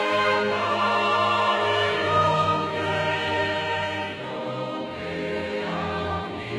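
Religious choral music, a Jehovah's Witnesses hymn, with voices singing long held notes over an orchestral backing.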